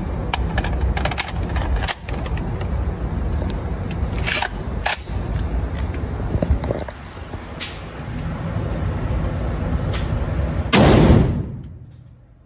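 Rumbling handling noise with scattered sharp clicks, then near the end a single shot from a Bushmaster XM15 AR-15-type rifle (5.56 mm), very loud and sudden, with an echo that dies away over about a second and a half in the indoor range.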